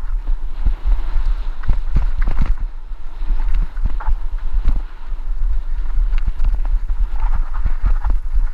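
Mountain bike descending a dry dirt trail: irregular knocks and rattles as the bike hits bumps, with tyres scraping loose dirt, under a steady low wind rumble on the helmet-mounted microphone.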